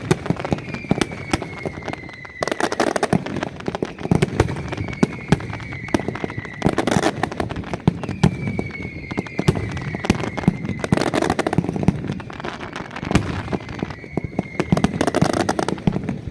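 Nocturna de Valencia fireworks: dense, continuous crackling and banging of firecrackers, with four falling whistles of whistling fireworks, one after another, each lasting a couple of seconds.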